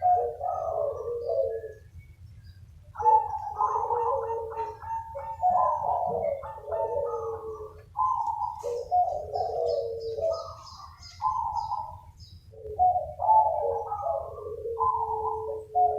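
Several zebra doves cooing over one another in quick, rolling phrases, answering each other, with short lulls about two seconds in and again near twelve seconds. Faint high chirps come in around the middle.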